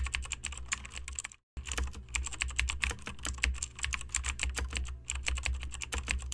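Typing sound effect: rapid computer-keyboard keystrokes clicking several times a second over a steady low hum. The clicking stops briefly a little over a second in, then carries on.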